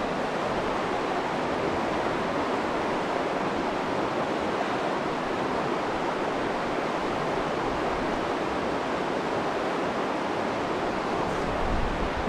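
Shallow river rushing steadily over a rocky bed: an even, unbroken sound of flowing water.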